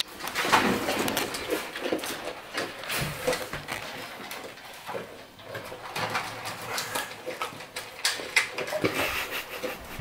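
Two Cane Corsos eating dry food from stainless steel bowls in wire crates: irregular crunching and the clatter of the metal bowls.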